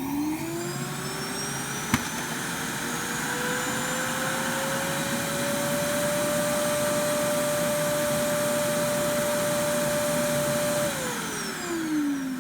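Roomba i6+ Clean Base evacuation motor running a self-empty cycle to suck debris out of the robot's bin. It winds up with a rising whine over several seconds, holds steady, then winds down with a falling pitch near the end. A single sharp click comes about two seconds in.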